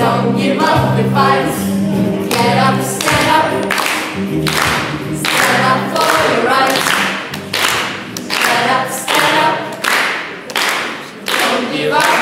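Music with a group of voices singing together over a steady beat.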